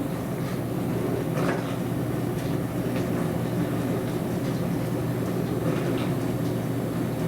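Dishwasher running mid-cycle: a steady motor hum with the rush of water inside the tub and a few faint knocks.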